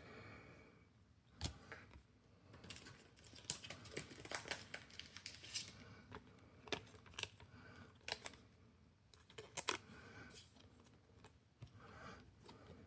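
Pokémon trading cards being handled and shuffled through: faint, scattered clicks and light rustles, in irregular little clusters.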